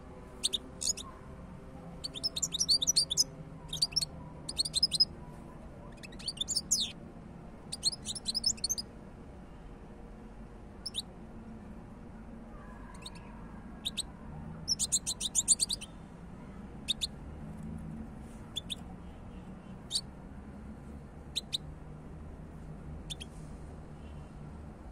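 European goldfinch singing: bursts of rapid, high twittering through the first nine seconds and again around fifteen seconds in, with single short call notes between and after.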